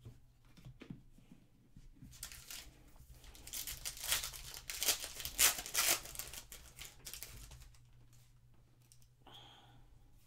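Foil wrapper of a Panini Legacy football card pack being torn open and crinkled by hand. It is a run of crackling tears, loudest about four to six seconds in.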